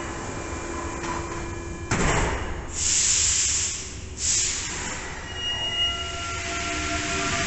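Paris metro line 4 MP89 train at the platform: the door-closing buzzer sounds, then the train doors and platform screen doors slide shut with a knock about two seconds in. Two loud hisses of air follow, then the train's motor whine starts and slowly rises as it pulls away.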